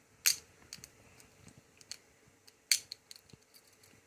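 Wire picks clicking and scraping inside a Master 2750D four-lever padlock as its levers are worked. There are scattered light metallic ticks and two sharper clicks, one just after the start and one past the middle.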